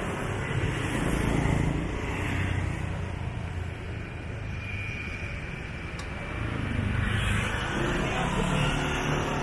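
Road traffic going by: motor vehicle engines running past, swelling about a second in and again near the end.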